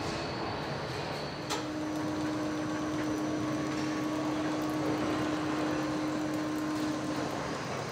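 Van assembly-plant ambience: a steady machinery hum and whir, with a steady tone that sets in about a second and a half in and stops near the end, and a single sharp click as it starts.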